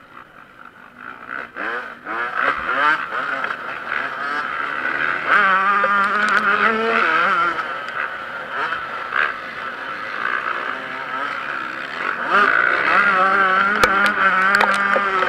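Yamaha YZ125 two-stroke motocross engine revving hard, its pitch climbing and dropping again and again with throttle and gear changes. It is quieter for the first two seconds, then louder with repeated surges.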